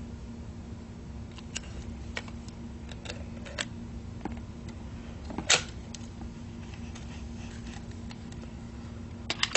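Hard plastic toy dog figure handled and moved about on carpet: scattered light clicks and taps, with one louder knock about five and a half seconds in, over a steady low hum.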